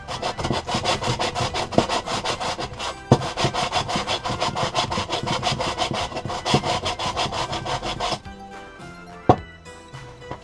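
Aluminium engine part from a 1973 Mobylette moped being rubbed back and forth on abrasive on a flat bench, a fast run of gritty scraping strokes, several a second, that stops about eight seconds in; the part is being surfaced flat before new head and barrel gaskets go on. A single sharp knock follows about a second later.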